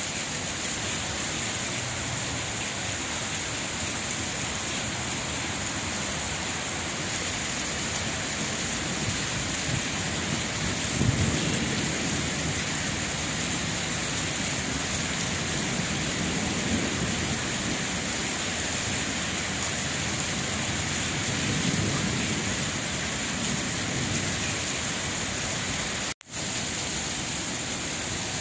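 Steady rain falling, an even hiss with a few low rumbles swelling and fading through it. Near the end the sound cuts out for a split second.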